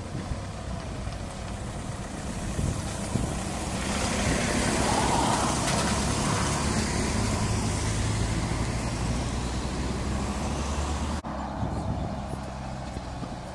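Cars driving past on a road, with engine hum and tyre noise. A car towing a trailer swells to its loudest about halfway through and then fades. The sound changes abruptly near the end where the picture cuts.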